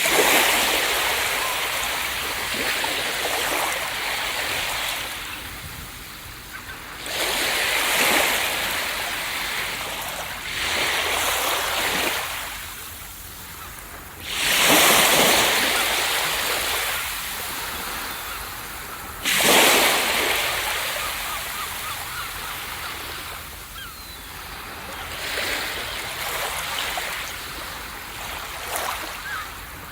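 Ocean waves breaking on a beach, one after another every few seconds: each comes in as a sudden rush of surf that swells and then slowly fades, the strongest a little after the start, about halfway through and about two-thirds of the way in.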